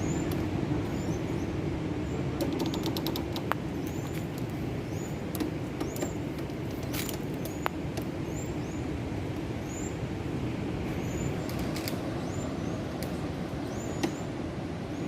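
Steady low rumble of a vehicle on the move, with a few light clicks and short high chirps repeating every second or so.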